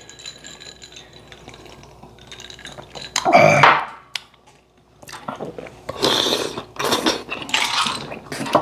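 Spoons and chopsticks clinking and scraping against plates and bowls as two people eat soupy braised kimchi, busiest in the last three seconds. A short voiced exclamation comes about three seconds in.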